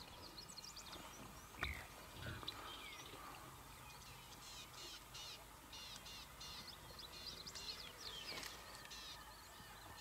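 Red-billed oxpeckers calling: many short, quick chirps in clusters, faint, with a single knock about one and a half seconds in.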